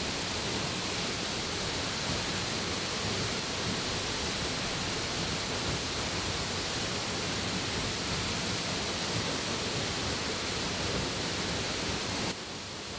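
Waterfall's water rushing steadily, dropping to a somewhat quieter level shortly before the end.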